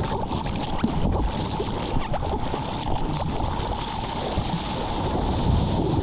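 Sea water rushing and splashing around a surfer in the waves, with wind on the microphone. The rush is steady, dotted with small splashes.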